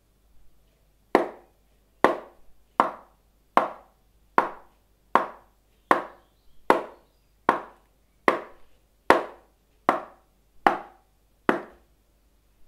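A hand knocking on a small box: a steady run of about fourteen sharp knocks, a little under one a second, starting about a second in.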